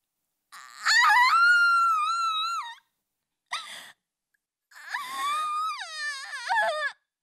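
A woman's long, high-pitched wailing cry of dismay, then a sharp breath and a second wailing cry that wavers and falls in pitch: her shocked reaction to finding her head shaved.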